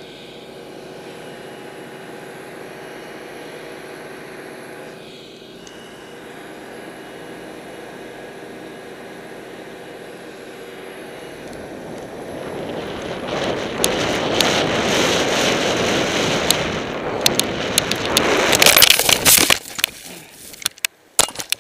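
Steady hum of chairlift machinery with several held tones, giving way about halfway through to a rising rush of wind and skis on snow as the skier gains speed. Near the end come a few sharp knocks as the skier hits the snow in a hard landing.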